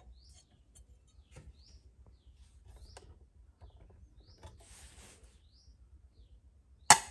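Small clicks and handling noise of parts being worked on, with a short high rising chirp that recurs about every second and a half, a brief hiss in the middle and one sharp, loud click near the end.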